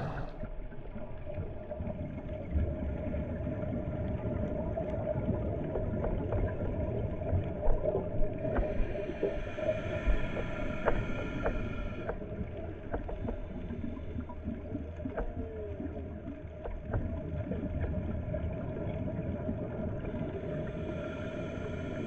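Underwater ambient sound picked up by a dive camera: a steady low drone with scattered sharp clicks and a few short gliding tones. A higher whine joins for a few seconds about nine seconds in and again near the end.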